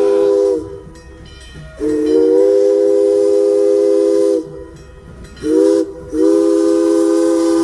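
Steam locomotive No. 2023's chime whistle blowing in blasts, each a chord of several low tones: the end of one blast, a long blast, a short toot, then another long blast.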